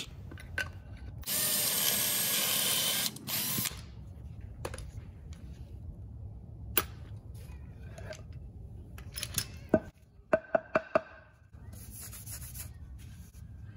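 Cordless drill running for about two seconds as it bores a pocket hole into a 2x4 through a Kreg R3 pocket-hole jig. A scatter of sharp clicks and knocks follows, clustered near the end, as the jig's clamp is released and the wood is handled.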